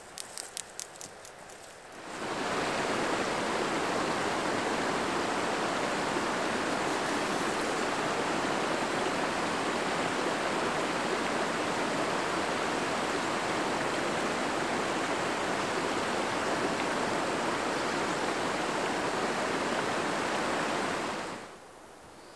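Gneiss Creek's water flowing with a steady rushing sound that fades in about two seconds in and fades out near the end, after a few footsteps in dry grass at the start.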